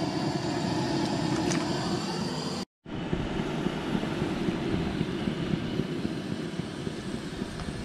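Steady roar of a Coleman propane camp stove's burner under a pot of boiling water. It breaks off for a moment about two and a half seconds in, then carries on.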